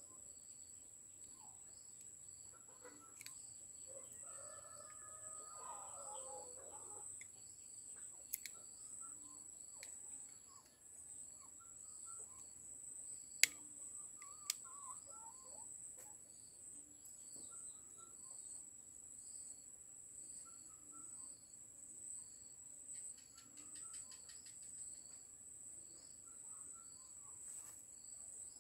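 Outdoor insect and bird sounds: a steady high insect drone with a fainter insect chirp pulsing about once a second, scattered short bird chirps, and a longer pitched bird call about four to seven seconds in. A few sharp clicks stand out, the loudest about halfway through.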